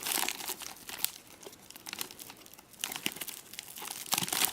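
Plastic bag crinkling as it is handled and opened by hand. The dense rustling thins out in the middle and picks up again near the end.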